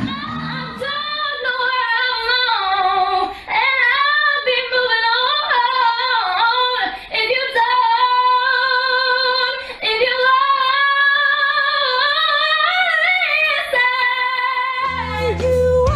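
A woman singing solo and unaccompanied into a handheld microphone, with quick runs that swoop up and down in pitch. A backing band with deep bass comes in near the end.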